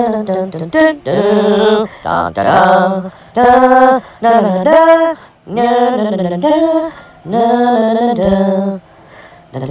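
Music: a voice singing held notes in short phrases of about a second each, with brief breaks between them.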